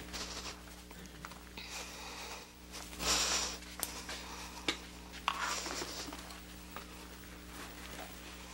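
A pause with a steady low hum, broken by short rustles, from about 3 and 5.5 seconds in, and a few sharp clicks as the lecturer moves toward the slide monitor.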